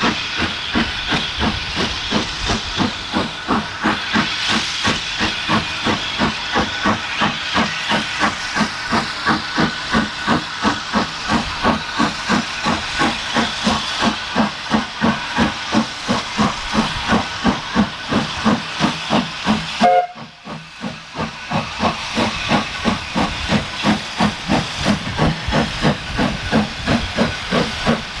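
Steam locomotive working, its exhaust beating at a steady rhythm of about three a second over a continuous hiss of steam. The beats drop away briefly about two-thirds of the way through, then pick up again.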